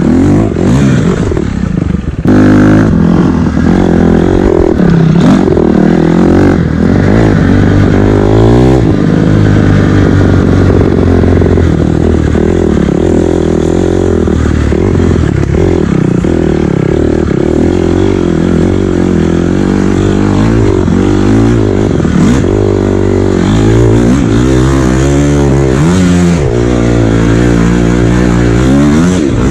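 KTM 250 dirt bike engine running hard as the bike is ridden, its pitch repeatedly rising and falling as the throttle is opened and closed. It gets suddenly louder about two seconds in.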